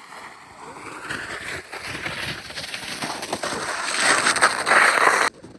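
Sled scraping down an icy snow slope at speed: a rough rushing noise with crackles that grows louder as it goes, then cuts off abruptly near the end.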